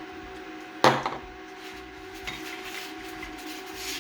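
A sharp knock of a hard object being put down or bumped on the workbench about a second in, followed by a few lighter clicks, over a steady hum.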